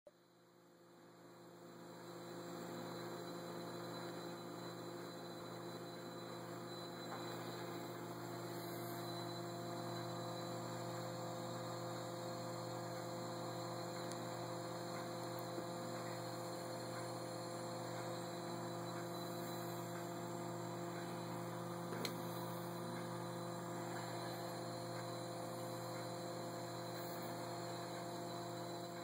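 Bedini SSG pulse motor running, its coil pulsing to keep the magnet rotor turning: a steady hum of several pitches that swells over the first couple of seconds and then holds.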